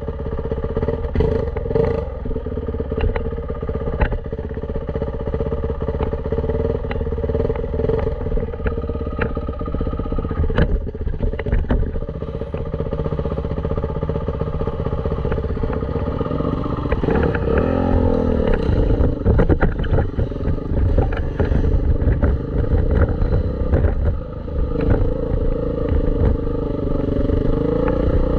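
Dirt bike engine running steadily under way with frequent knocks and rattles. Its pitch swings down and back up quickly with the throttle about two-thirds of the way through and again near the end.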